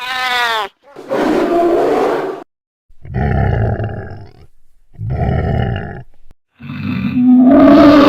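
A string of fantasy dragon roar sound effects: a brief shriek that rises and falls in pitch, then three separate roars of one to two seconds each with short silent gaps, and a longer, louder roar beginning near the end.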